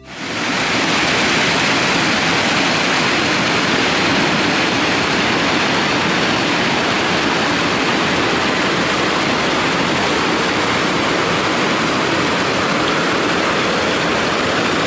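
Stream water rushing, a loud, steady, even noise that fades in within the first half second.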